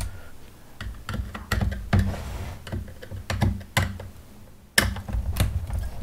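Hand screwdriver backing out a captive screw from an iRobot Roomba 650's plastic chassis: irregular light clicks and ticks of the tool and plastic, with a sharper knock a little under five seconds in.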